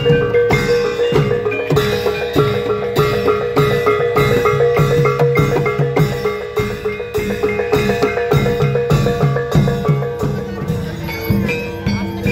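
Reog gamelan ensemble playing: a large kendang barrel drum beaten by hand in a fast, driving rhythm over bass drum, cymbal and tuned gong-chime percussion.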